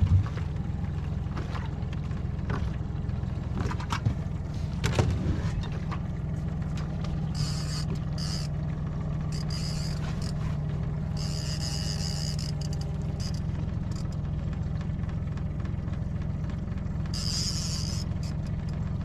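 A boat's outboard motor runs steadily at trolling speed as a low, even hum. Over it come scattered clicks and knocks in the first few seconds, then several short high-pitched buzzes while a fish is being reeled in.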